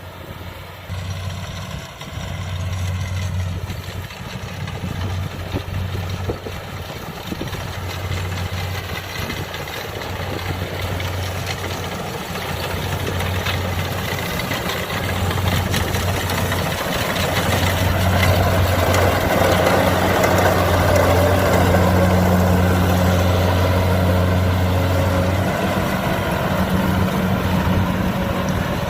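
Kubota DC70 combine harvester running with a steady low engine hum and machinery noise, growing louder about two-thirds of the way in.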